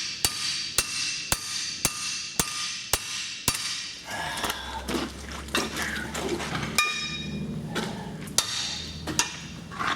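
Hammer blows on a seized brake rotor and hub assembly: a quick series of about seven strikes, roughly two a second, each ringing, then a few scattered blows and a ringing clang later on. The hub is stuck on the axle and is not coming off.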